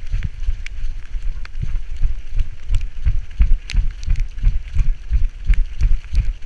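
Labrador retriever running on a leaf-covered trail, heard through a camera harnessed to its back: a rhythmic low thumping of its gait, about three strides a second, with sharp crackles and clicks from the leaves underfoot.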